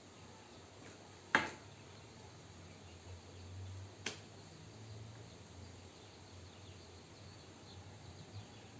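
Two sharp clicks of the plastic parts of a helmet chin-clamp camera mount being handled and fitted together, the first about a second and a half in and louder, the second about four seconds in, over a faint background.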